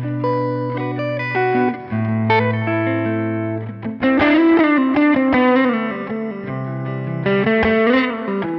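Telecaster-style electric guitar (PGM Van Zandt TLV-R1, ash body, Van Zandt pickups) played through a Line 6 Pod XT's JTM-45 amp model with chorus, delay and plate reverb. Held chords over a low ringing note, then a lead line with bent, vibrato notes about four seconds in and again near the end.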